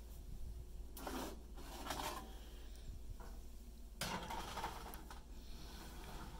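Pizza on a flat baking stone being slid onto a metal oven rack: a few short, faint scrapes, two about a second and two seconds in, and two more about four and five seconds in.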